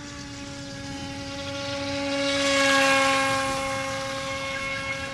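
Force1 Velocity RC speedboat's small electric motor running with a steady high whine as the boat speeds across the water. It grows louder toward the middle, then fades as the boat moves away.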